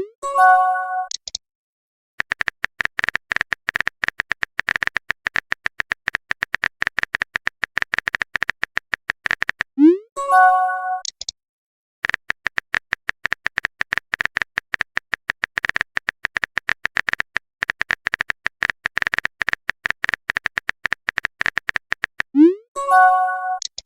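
Phone-chat sound effects: long runs of rapid typing clicks, broken three times (at the start, about ten seconds in, and near the end) by a short rising swoosh and a chime of a message being sent or received.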